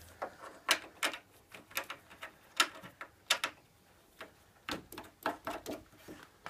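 Sharp clicks and light knocks from handling the parts and fittings of a knock-down keyboard stand during assembly, coming at irregular intervals, with a pause about four seconds in and then a quicker cluster.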